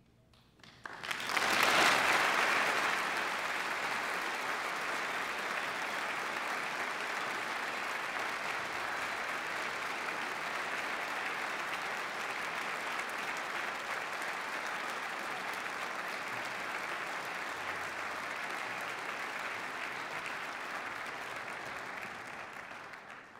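Audience applauding in a theater hall, starting suddenly about a second in, loudest just after, then steady, and dying away near the end.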